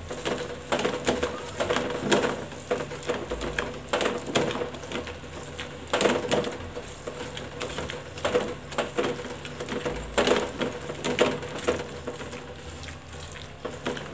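Pav bhaji being mashed and worked on a hot tawa with a metal utensil: irregular knocks and squelches a few times a second as the tool presses the thick vegetable mash against the griddle, over a light sizzle.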